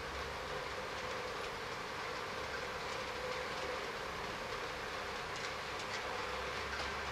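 HO scale model diesel locomotive, Union Pacific 1996, running slowly along the layout track: a steady whirring and rumbling, with faint clicks from the wheels on the rail joints.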